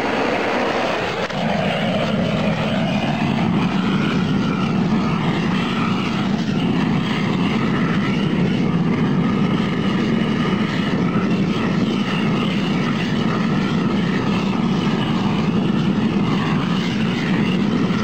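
Propane torch burner running at full force, a steady, loud rushing flame with no change in pitch or strength.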